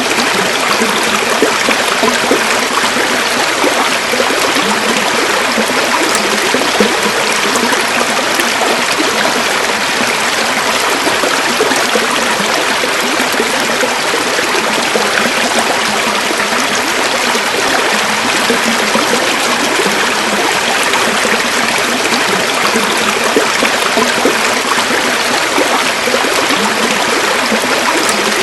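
A river flowing steadily over stones, a constant rushing with bubbling and trickling in it.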